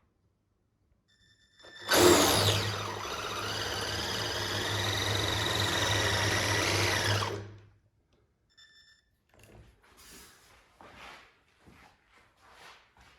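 Electric drive motor and gears of a Kyosho Blizzard DF-300 radio-controlled snowcat, spinning up suddenly with a whine that rises in pitch, runs for about five seconds and winds down. A few soft, irregular knocks follow.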